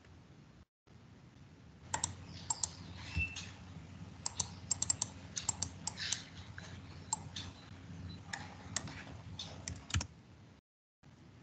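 Computer keyboard and mouse clicking in irregular quick bunches, heard over a video call.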